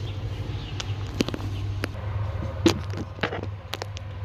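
Scattered clicks and light knocks of parts being handled and fitted while reassembling a refrigerator's interior, the loudest about two and a half seconds in, over a steady low hum.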